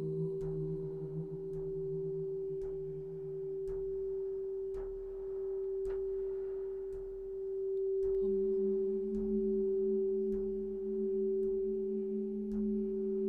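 Sustained pure drone tones: one steady, held tone, with a lower tone underneath that fades out about four seconds in and returns at a slightly different pitch about eight seconds in. Faint ticks recur about once a second.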